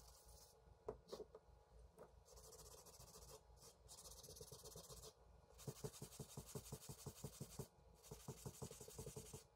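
Faint hand sanding on a metal jack part: quick back-and-forth rubbing strokes, about six a second, in two runs over the last four seconds, after a few scattered light knocks early on.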